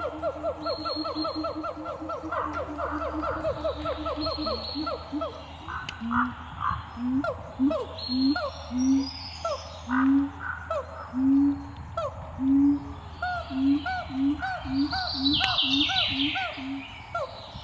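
Low hooting bird calls: a fast run of repeated notes for the first few seconds, then single short rising notes about once a second. A burst of fainter, higher chirps comes near the end.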